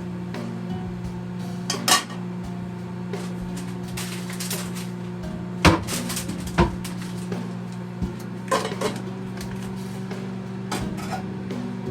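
Kitchen utensils and dishes knocking and clinking during food preparation: a few separate sharp clacks, the loudest about two, six and nine seconds in, over a steady low hum.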